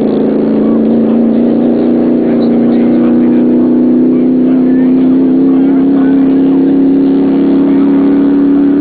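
A motor vehicle engine running steadily, its pitch rising slowly and evenly as it gathers speed.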